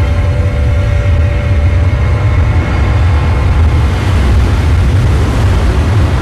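Film sound design: a deep, heavy rumble with a rushing roar that builds from about four seconds in. Faint held music tones fade out in the first couple of seconds.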